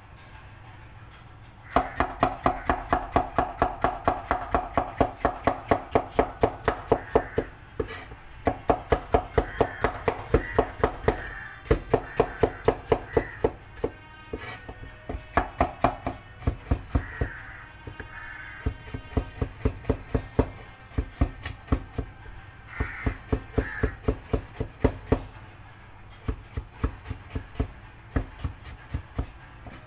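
A knife chopping food on a cutting board in quick runs of about four to five strokes a second, broken by short pauses.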